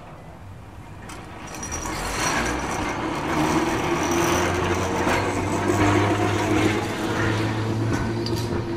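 A vintage 1928–29 Porto-built, Brill-type electric streetcar rolling past on street track: its traction motors give a steady low hum with a higher whine above it over the rumble of the wheels on the rails. It grows louder over the first three seconds as the car approaches, then holds steady as it passes.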